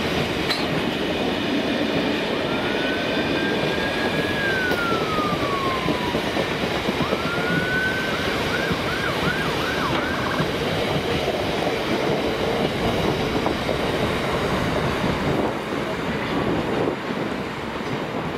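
Loaded oil tank wagons of a freight train rolling past, a steady noise of wheels on rail that eases a little near the end as the tail of the train goes by. Over it an emergency vehicle siren sounds: one slow rising-and-falling wail, then a run of quick yelping sweeps.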